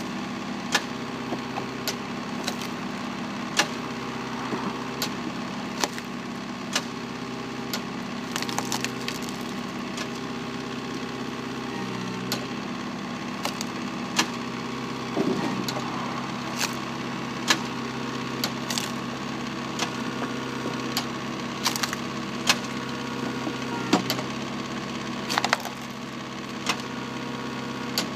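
Engine-driven hydraulic log splitter with the engine running steadily. Scots pine rounds crack and snap sharply as the wedge splits them, about once a second.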